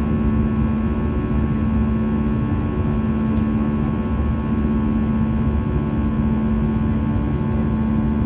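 Airbus A320 jet engines in flight, heard inside the passenger cabin: a steady drone with a constant low hum and fainter higher tones above it.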